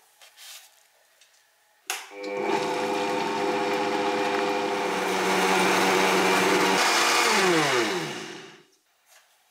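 Countertop blender switched on with a click about two seconds in, running steadily as it mixes chickpea flour and water into a thin batter. It is then switched off, and its motor whine falls in pitch as it spins down near the end.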